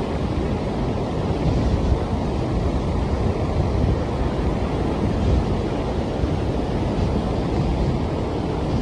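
Sea breeze buffeting the microphone, a steady low gusting noise, with ocean surf washing beneath it.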